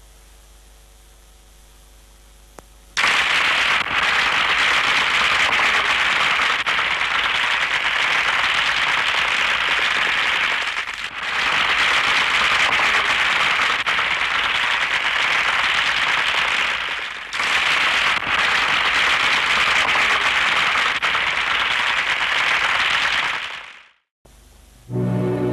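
Audience applauding, a dense crackle of many hands clapping that starts sharply about three seconds in over a faint hum, dips briefly twice, and fades out near the end.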